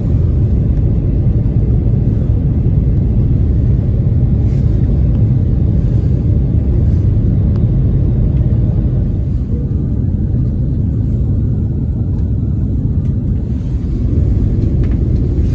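Steady low rumble of an airliner cabin during descent, jet engines and airflow heard from a window seat. It eases slightly about ten seconds in and rises again near the end.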